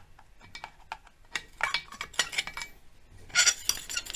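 Hand tool clinking and scraping against the metal of an outboard lower unit's water pump housing as the wear plate is pried loose: scattered light clicks, then a louder rasping scrape about three and a half seconds in.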